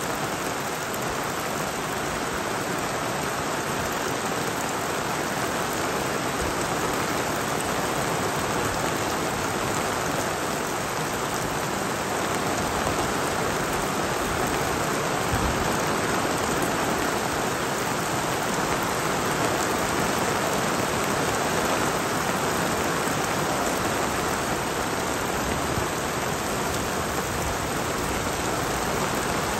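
Heavy rain falling steadily, a dense, even hiss of downpour.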